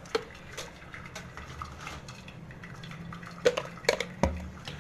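Glass blender jar clinking and knocking as boiled spinach is moved into it from a plastic colander: a few light clicks, then a cluster of louder knocks near the end.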